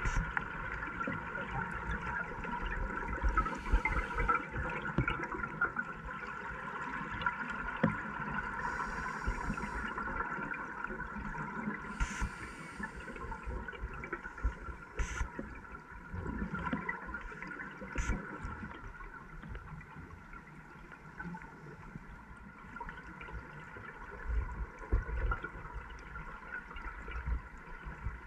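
Scuba diver's exhaled bubbles gurgling underwater from the regulator, in hissy bursts a few seconds apart in the first half, over a steady hum. There are a couple of sharp clicks midway.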